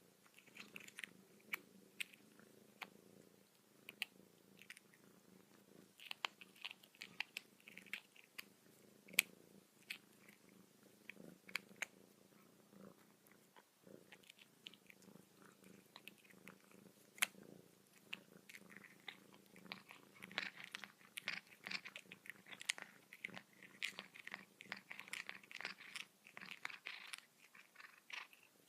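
House cats grooming each other: a steady low purr with many small irregular licking and chewing clicks from tongues and teeth working fur, busier in the second half.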